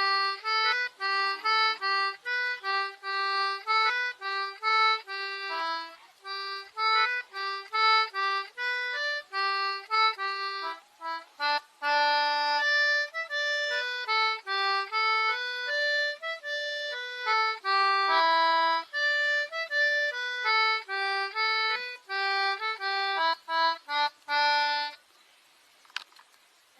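A lively tune played on a free-reed instrument, in quick separate notes over a repeated lower note, stopping about two seconds before the end.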